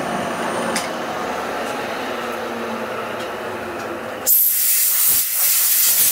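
Bridgeport milling machine running steadily with its end mill in a mild steel plate. About four seconds in, a compressed-air blow gun starts with a sudden loud hiss, blowing the swarf off the workpiece.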